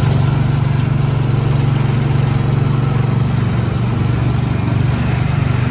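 Small gasoline engine of an antique-style ride car running steadily as the car drives along its guided track, with an even low hum.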